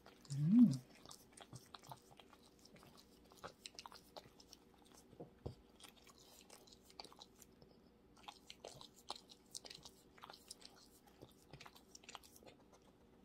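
French bulldog chewing and licking small bites of food off fingertips: a string of faint, irregular wet smacks and clicks. About half a second in there is one brief, loud pitched sound that rises and falls.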